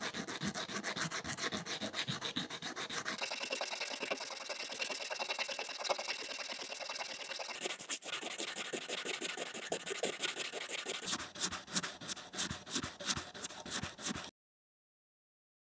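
Wild boar tusk being hand-sanded with sandpaper: quick back-and-forth rubbing strokes of abrasive on tooth. The sound cuts off abruptly near the end.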